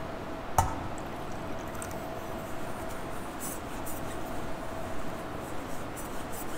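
Sacred vessels being purified after Communion: one sharp clink of a chalice or ciborium about half a second in, then a few faint small clinks and liquid sounds, over a steady hum.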